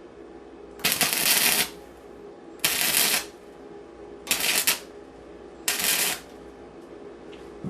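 Welder laying short stitch welds on the thin sheet steel of a 1987 Buick Grand National trunk lid: four bursts of crackling arc, each half a second to a second long, with pauses between.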